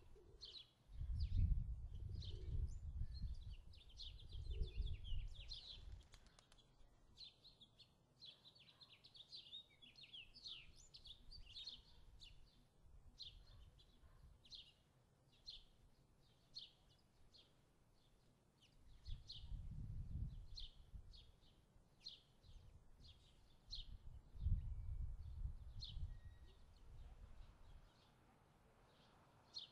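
Small birds chirping in a steady string of short, high calls. Low rumbling noise comes in three spells: about a second in, around twenty seconds in and around twenty-five seconds in.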